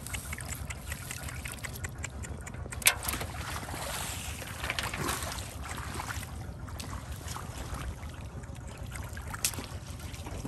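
Shallow muddy water sloshing and splashing as a plastic basket is scooped and swished through it, over a steady low rumble. A sharp knock about three seconds in stands out, with a smaller one near the end.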